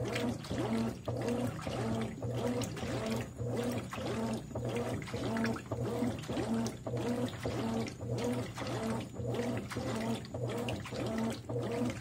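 Consul 13 kg top-load washing machine agitating a full load in water: the agitator swishes back and forth, reversing a little more than once a second. Each stroke churns the water and brings a short whine from the drive, over a steady low motor hum.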